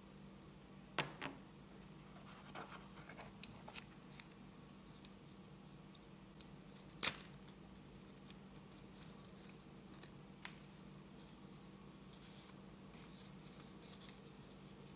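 Hands handling phone packaging: scattered light clicks and taps as small items are set down and picked up, then the scraping rustle of a thin paper card sleeve being handled and opened. The sharpest click comes about seven seconds in, over a faint steady low hum.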